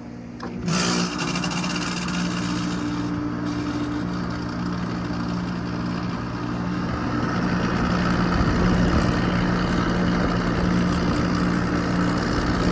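Air-conditioner outdoor condenser unit switching on about half a second in, then running with a loud, steady mechanical hum and rattle. The technician takes the noise for the compressor's, and the unit's compressor has failed prematurely: the pressure will not pull down.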